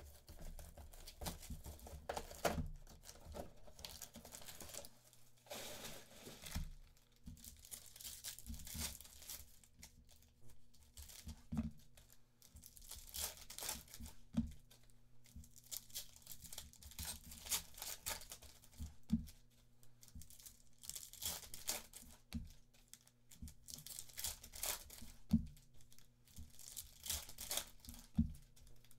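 Foil trading-card pack wrappers being torn open and crinkled, a run of irregular rips and crackles over a faint steady low hum.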